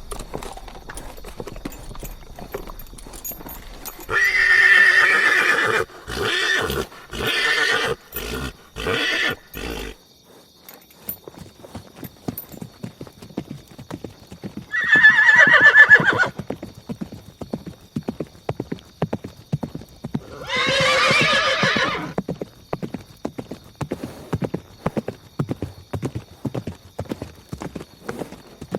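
Horse whinnying over a steady clip-clop of hooves: a long whinny about four seconds in that breaks into several short calls, then two more whinnies, one near the middle and one about two-thirds through.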